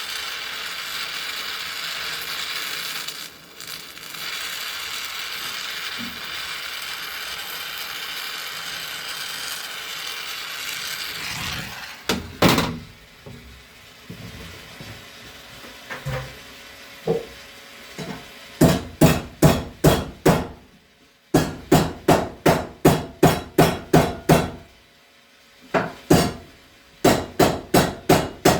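A gas torch hissing steadily as it heats the bent tip of a stainless steel boat propeller blade. It stops about eleven seconds in, and a hammer then strikes the heated tip to straighten it, with a few single knocks and then quick runs of about five blows a second.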